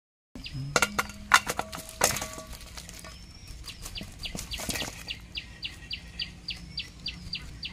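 Fish slapping and clattering into an aluminium basin as they are tipped out of a woven bag, with a few sharp knocks in the first two seconds and more slaps just before halfway. Through the second half a bird gives a short high chirp about three times a second.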